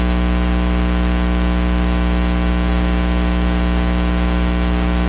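Loud, steady electrical mains hum and buzz with hiss in the audio line, a stack of evenly spaced overtones that doesn't change.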